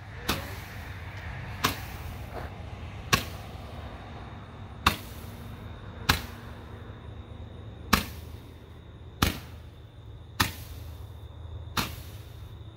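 Multi-shot consumer firework cake firing in sequence: nine sharp bangs, one every second and a half or so.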